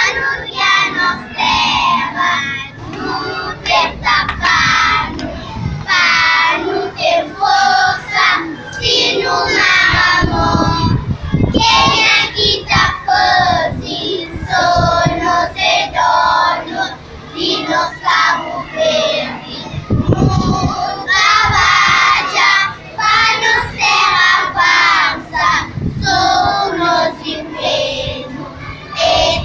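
A group of young children singing together in unison, with a low rumble coming in twice.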